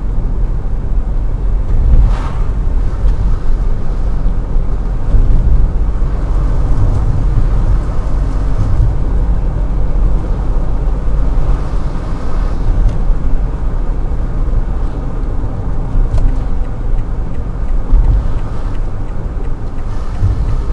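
A loud, steady low rumble with a rough, fluctuating texture and little above it: the recurring strange noise that the recording was made to capture.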